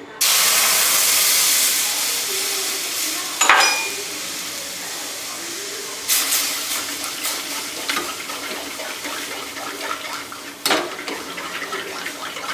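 Milk poured into a hot metal kadai, hissing loudly as it hits the pan, then a slotted metal spatula clanking and scraping against the pan as the milk is stirred, with one ringing strike about three seconds in and a few sharp clanks later.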